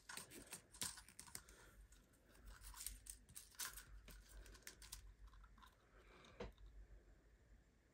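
Faint, scattered paper rustles and light taps as hands press and smooth adhesive silver shimmer trim onto a cardstock card.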